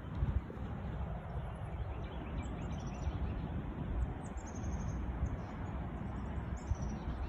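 Strong gusting wind rumbling and buffeting over the microphone. A bird calls several times in short rapid series of high chirps.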